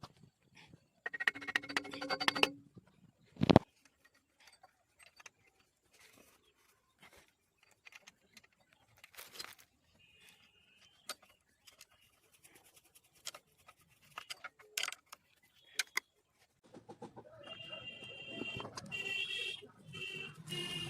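Scattered metal clinks and knocks, as of tools and engine parts being handled, with one louder knock about three and a half seconds in. Near the end a denser, continuous sound with repeated high chirping tones comes in.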